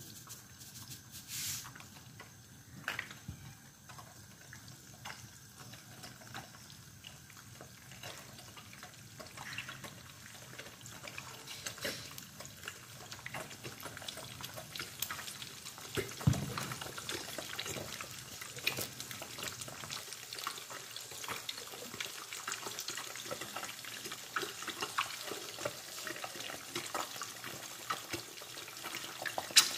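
Eggs frying in hot oil in a pan: a steady sizzle full of small crackles and pops that get busier in the second half. A single soft thud about halfway through.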